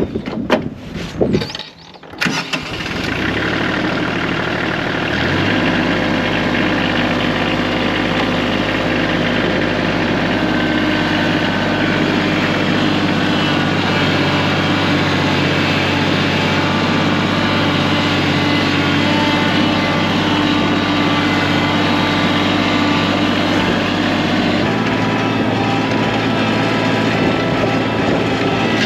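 An engine is cranked and catches about two seconds in, then runs steadily at idle.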